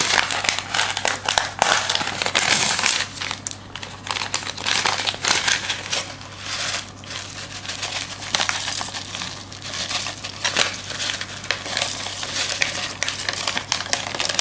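Crinkling and rustling of a seasoning packet being handled and opened, with its powder shaken out into the pot, over a steady low hum.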